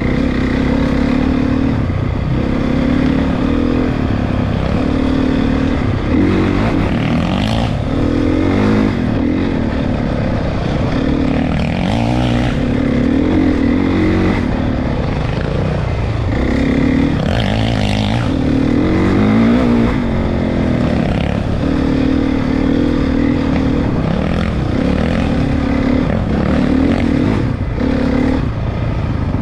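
Four-stroke dirt bike engine running under load while riding, holding steady revs for stretches of a few seconds, with the pitch rising and falling on throttle changes several times.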